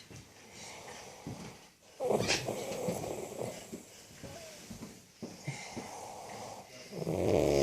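A woman snoring: one snore about two seconds in, a fainter one around five seconds, and another starting near the end.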